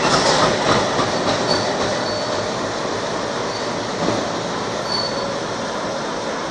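Diesel locomotive hauling a freight train past: a steady rumble and rush of engine and wheels on rail, with a few short high-pitched squeals.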